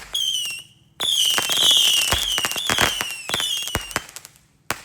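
Fireworks going off, really loud: shrill whistles that fall slightly in pitch, one after another, over a rapid run of crackling pops, with sharp cracks at the start and near the end.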